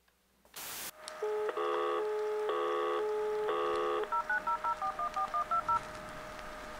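Telephone line sounds: a brief burst of static, then a steady tone with three identical tone chords sounding about a second apart over it, then a quick run of about a dozen touch-tone (DTMF) dialing beeps.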